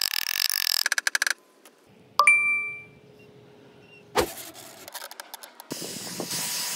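A sharp metallic ding about two seconds in that rings briefly at several clear pitches. A short thump follows about four seconds in, with rapid clicking and hiss near the start and a burst of hiss near the end.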